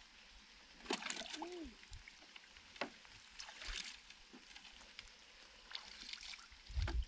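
Intermittent water splashing and sloshing with scattered knocks, the loudest a low thump near the end.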